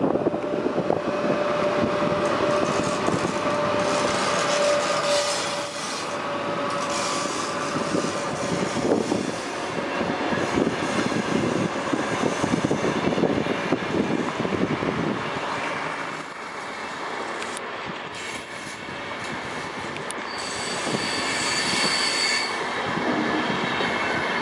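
Sr1 electric locomotive and its InterCity carriages rolling past slowly as the train pulls out, wheels running on the rails. A steady whine sounds in the first few seconds, and a high-pitched wheel squeal comes near the end.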